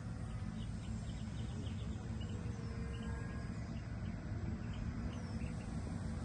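Outdoor ambience: a steady low wind rumble on the microphone with faint high bird chirps, mostly in the first couple of seconds.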